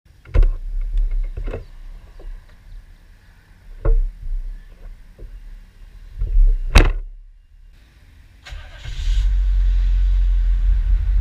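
Car engine and road noise picked up by a camera mounted on the car itself. There are several sharp thumps in the first seven seconds, the loudest near the end of that stretch. From about eight and a half seconds on there is a steady low engine drone with a hiss as the car drives off.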